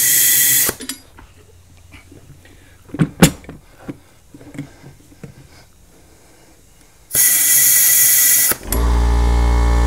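Compressed air hissing in two loud bursts, at the start and again about seven seconds in, as shop air is fed through the valve stem into a motorcycle tire and escapes past a bead that will not seat. A few sharp clicks come in between. Near the end a loud steady hum of several even tones begins.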